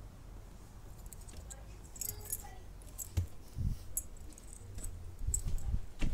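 A small ring of metal house keys jangling now and then in the hand, in short clinks, with a few dull thumps in between.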